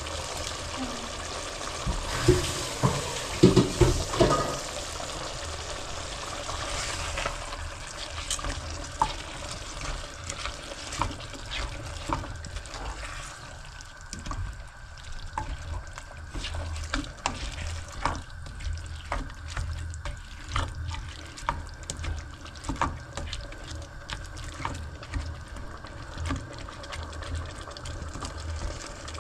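Water running and splashing into a cooking pot with rice in it, loudest in the first few seconds. Then a long run of light, scattered clinks, like a spoon or lid knocking against the pot, over a low steady hum.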